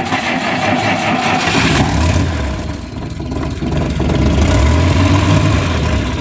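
GAZ-69's freshly rebuilt four-cylinder flathead engine being started: cranking on the starter, catching about two seconds in, then running with a low rumble that grows louder about four seconds in.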